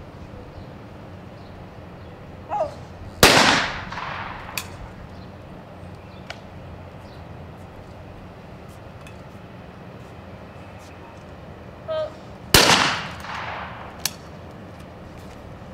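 Two single 12-gauge trap shotgun shots about nine seconds apart, each with a trailing echo. Each shot comes just after the shooter's short call for the clay target, and each is followed about a second and a half later by a smaller sharp click.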